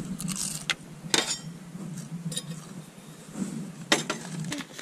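Light metallic clinks and clatter as a steel camping cup and camping-stove parts are handled and set down on a metal tailgate table, a few sharp taps about a second apart over a steady low hum.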